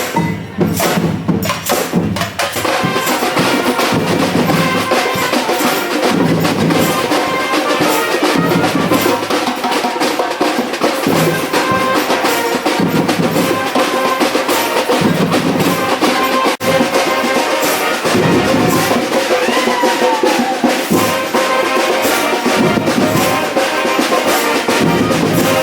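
Street parade band playing: a busy drum and percussion rhythm with horns holding notes over it, and one note sliding down about twenty seconds in.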